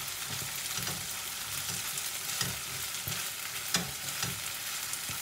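Boiled potato halves frying in an onion and black-pepper mixture in a pan, a steady sizzle. A wooden spatula stirs them, knocking and scraping against the pan a few times.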